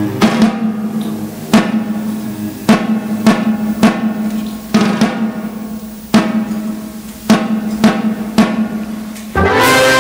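Music: a drum struck loudly about fifteen times in an uneven pattern over a held low note. Near the end a fuller passage of sustained notes comes in.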